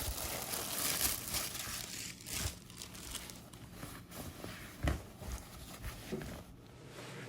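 Packaging being unwrapped by hand, crinkling and tearing, busiest in the first second or two. A few sharp knocks follow, the loudest about five seconds in.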